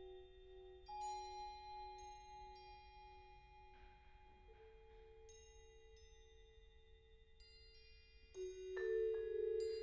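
Sparse, softly struck mallet-percussion notes on vibraphone and marimba, each pitch ringing on for several seconds. Single notes come about a second in, around two seconds and around five and a half seconds, and a louder cluster of notes is struck near the end.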